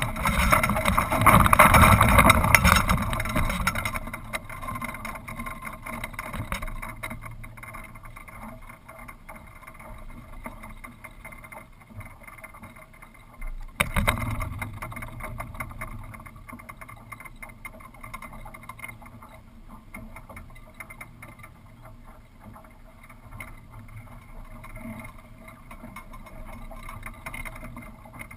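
Wind rushing over a mast-mounted camera on a small sailboat, loud and buffeting for the first few seconds, then a steadier, quieter rush. One sharp knock about 14 seconds in.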